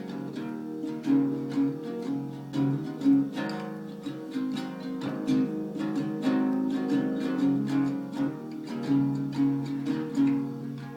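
Acoustic guitar strumming and picking chords in a blues tune, with no singing.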